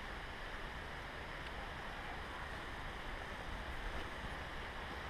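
Steady, even noise of wind on the microphone, with a low rumble; no distinct sounds stand out.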